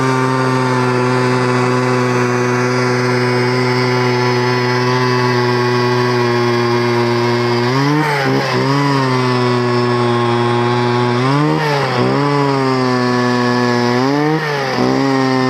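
Gas-powered ice auger running at high speed as its spiral bit drills through lake ice. The engine note stays steady, then briefly rises and dips three times in the second half as the load changes.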